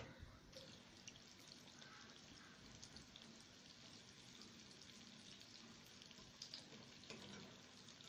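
Breadcrumb-coated chicken kofta frying in hot oil in a shallow pan: a faint, steady sizzle with scattered crackles, and a few light clicks as the pieces are turned with a fork.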